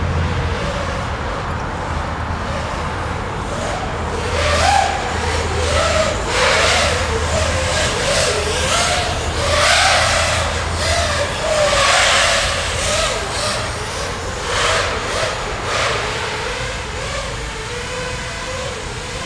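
Six-cell 5-inch FPV quadcopter with Emax 2306 motors and Gemfan Hurricane props flying: a motor-and-prop whine whose pitch keeps rising and falling with the throttle, with louder rushing surges every couple of seconds as the pilot punches out of turns.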